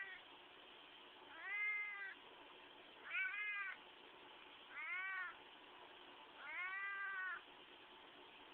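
Domestic cat meowing four times at even spacing, each call rising and then falling in pitch, while being held and squeezed.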